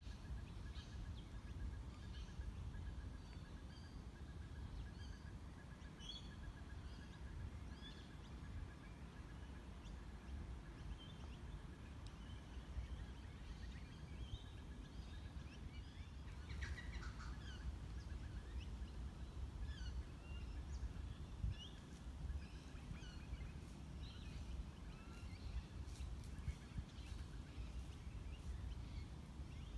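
Wild birds calling, with many short high chirps throughout, a rapid even pulsing note over the first several seconds, and a louder burst of calls about seventeen seconds in. A steady low rumble runs underneath.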